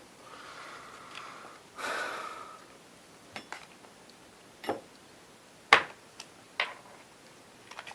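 A radio's case and parts being handled while it is taken apart: two breathy exhales, then scattered sharp clicks and knocks, the loudest about six seconds in.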